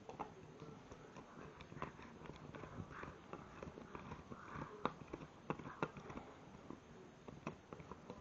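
Staffordshire bull terrier puppy gnawing an antler: irregular clicks and scrapes of teeth on the hard antler, the sharpest click just before halfway through.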